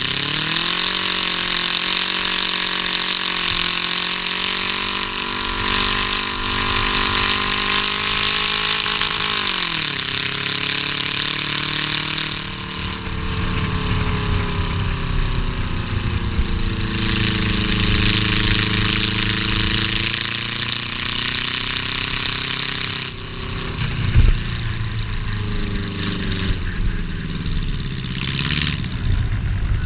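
Race car engine heard from inside the stripped cabin, running hard at high revs, its pitch falling sharply about ten seconds in, then climbing and easing off again with the throttle, over a steady rush of wind and road noise. A single sharp bang, the loudest sound, comes near the end.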